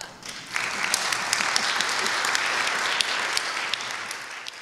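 Audience applauding. It starts with a few scattered claps, swells to full within about half a second, and fades out near the end.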